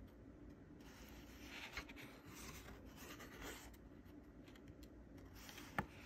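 Faint rustling and rubbing of thick drawing-paper pages being turned in a handbound book, with one small click near the end.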